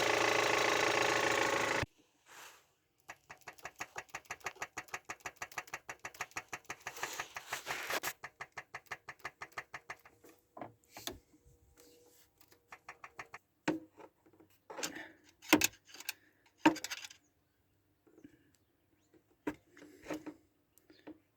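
Great Wall Hover H5's Mitsubishi petrol engine running with a knock, which the owner puts down to a slack timing belt from a failing hydraulic tensioner. It cuts off suddenly about two seconds in. Then comes a fast run of clicks, about five a second, for several seconds, followed by scattered knocks and clicks.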